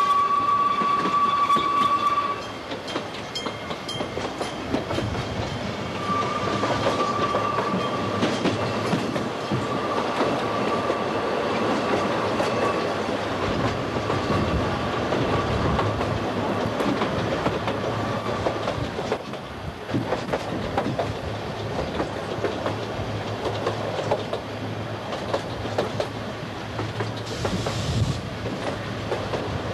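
Ōigawa Railway Ikawa Line train running, heard from aboard. Its horn sounds and ends about two seconds in, then wheels click over the rail joints, with a thin steady wheel squeal through much of the middle.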